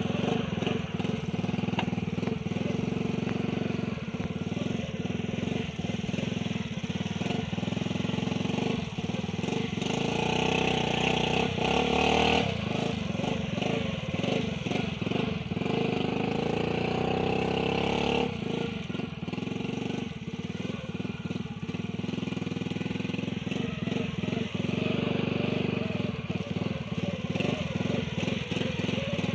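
Small 70cc Chinese motorcycle's single-cylinder four-stroke engine running at low speed while towing a cart heavily loaded with branches. For several seconds in the middle the engine note shifts and rises, then settles back to its steady running.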